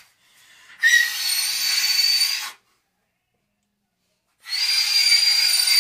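A machine whirring with a steady rushing hiss and a high whine, in two stretches of about two seconds each that start and stop abruptly.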